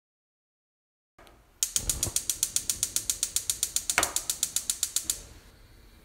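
Gas stove spark igniter ticking rapidly, about ten clicks a second, starting about a second and a half in, with one louder snap about four seconds in. The clicking stops after about three and a half seconds as the burner lights, leaving a soft steady hiss of burning gas.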